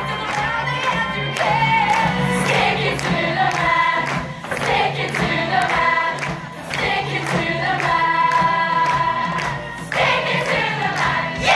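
A group of young voices singing together over loud amplified rock music with a steady drum beat.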